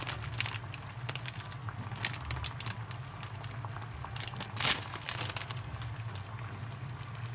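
Plastic instant-ramen packet crinkling as it is handled and torn open, with the loudest rustle about four and a half seconds in.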